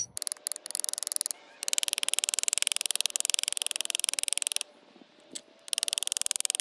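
Claw hammer peening a rivet over a brass washer on a leather strap, rapid even metal-on-metal taps against a steel block, many a second. There is a short pause about four and a half seconds in before the tapping resumes.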